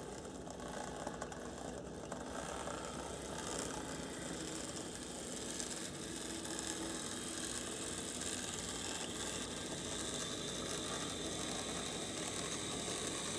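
HO-scale brass model of a German 4-6-2 steam locomotive running on track, its motor and gears making a steady mechanical running noise that grows slightly louder toward the end.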